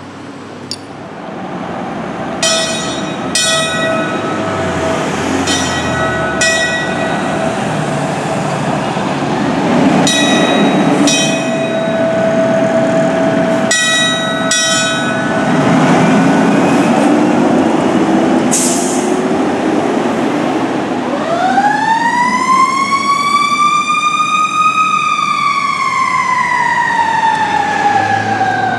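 Fire engine's bell rung in two runs of rapid, evenly spaced strokes over the engine's running rumble. About three quarters of the way through, its siren winds up quickly and then slowly falls.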